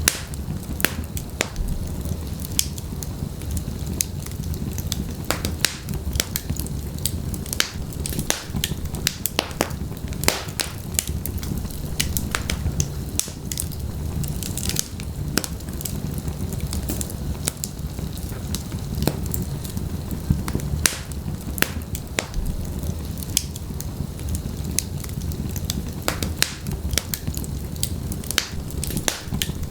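Wood fire burning in a fireplace, with irregular sharp crackles and pops over a steady low rumble of flame.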